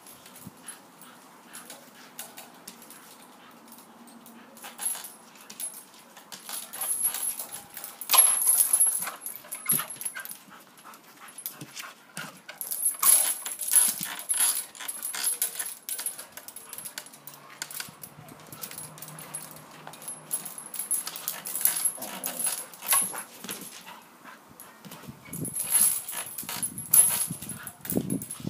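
A dog tugging and swinging on a rope toy hung from a tree branch: uneven bursts of rustling, scuffing and creaking, with the dog's own vocal noises.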